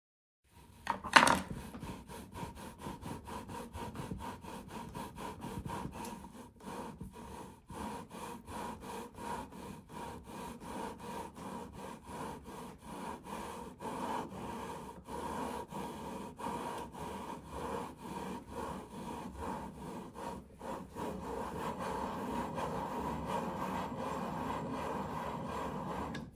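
Lapping bar worked back and forth inside scope rings packed with abrasive lapping compound, which wears the ring surfaces true: a gritty metal-on-metal rubbing at about two strokes a second. There is a sharp knock about a second in.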